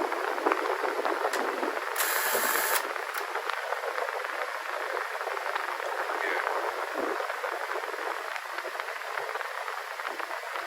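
Mid-1980s box fan running on high speed: a steady rush of air, with the breeze buffeting the microphone. A brief louder hiss comes about two seconds in.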